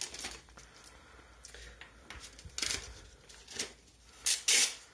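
Plastic packaging being handled: a few short crinkling rustles from a clear plastic bag and the battery's plastic acid container, the loudest near the end.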